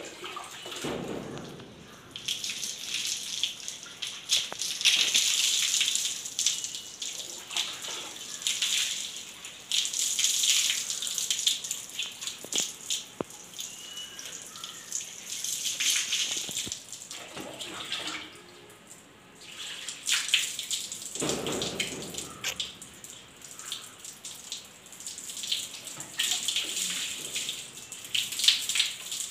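Water poured from a plastic mug over long, shampooed hair, splashing and pattering onto a concrete floor. It comes in several pours with short lulls between them.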